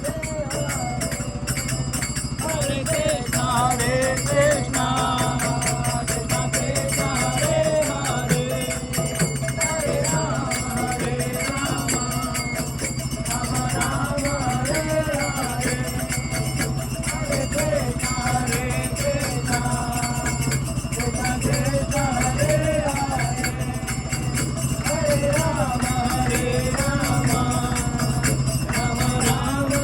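Devotional kirtan music: voices singing a wavering melody over steady jingling percussion.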